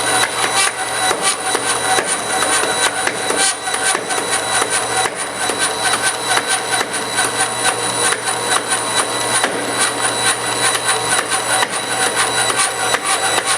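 Traveling-table vertical bandsaw cutting through a roll of thin plastic thermoforming sheet: a steady hum from the machine under a dense, continuous crackle of rapid clicks as the blade goes through the wound layers. The popping is the sheet ripping out at the edge instead of cutting cleanly, which the operator believes is what is happening.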